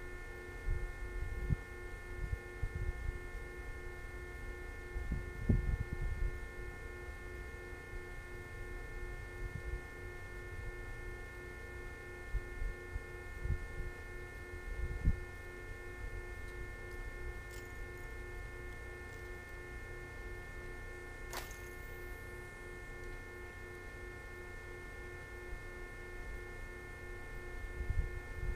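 A steady electrical hum made of several pitches, with bouts of low wind rumble on the microphone and a single sharp click a little over two-thirds of the way through.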